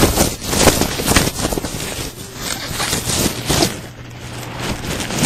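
Loose packaging foam rustling and crackling right against the microphone as the camera is pushed down into it: a dense run of scratchy crackles that eases off near the end.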